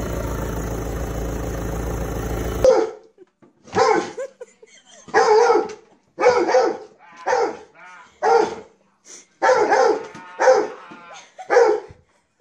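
A dog barking repeatedly, about ten sharp barks roughly a second apart, starting after a steady background noise that stops abruptly near three seconds in.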